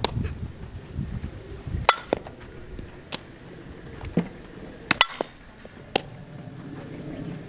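Sharp pops and cracks of a softball being hit and smacking into leather gloves during infield ground-ball drills, a few separate strikes one to three seconds apart, two of them close together about five seconds in.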